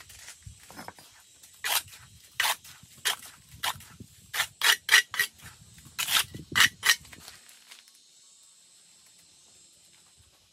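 A series of about a dozen short, sharp scraping strokes, irregularly spaced and bunched between about two and seven seconds in, where they stop.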